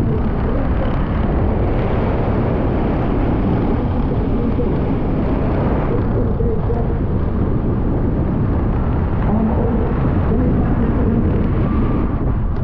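Steady outdoor rumble and hiss, heaviest in the low end, with faint distant voices.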